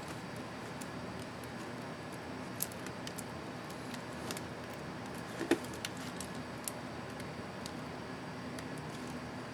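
Scattered small sharp plastic clicks from a laptop keycap and its scissor clips being handled, with two louder clicks about two and a half and five and a half seconds in, over a steady low hiss and hum.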